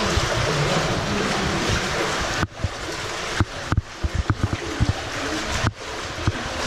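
Water rushing and splashing around feet wading through a narrow water-channel tunnel. The steady rush breaks off about two and a half seconds in, giving way to a run of short knocks and thumps before it picks up again.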